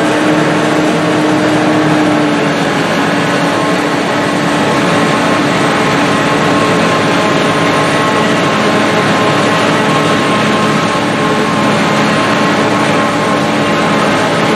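Self-propelled forage harvester chopping standing corn for silage: a loud, steady drone of its engine, cutterhead and blower, with a faint hum of steady tones in it.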